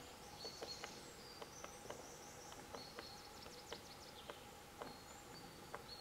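Grey-headed woodpecker pecking at tree bark while foraging: irregular light taps, two or three a second. High thin songs of small birds sound in the background, with a quick trill in the middle.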